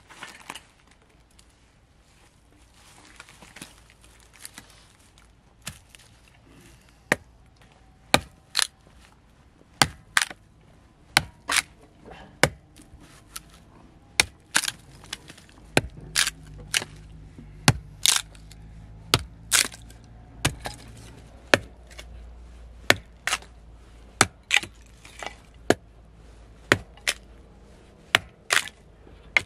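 Hammer blows on a short upright log of firewood: sharp wooden knocks, one or two a second, starting about seven seconds in and continuing to the end.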